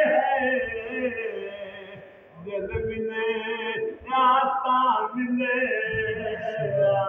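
A man singing a Punjabi naat without accompaniment, with long held, wavering notes. He breaks off briefly about two seconds in and then goes on.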